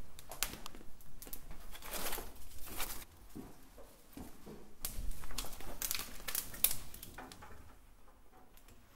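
Irregular rustling and scuffing with scattered sharp clicks, from a person moving and walking about a small room. The noises bunch into two spells and then fade.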